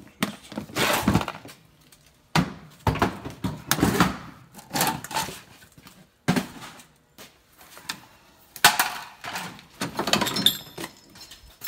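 Hard objects clattering and knocking as clutter is moved about by hand. The sounds come in a run of separate bursts with short pauses between.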